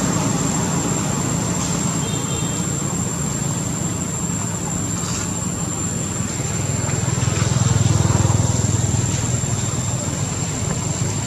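A steady low engine hum, growing louder about eight seconds in, with a thin, steady high-pitched tone above it.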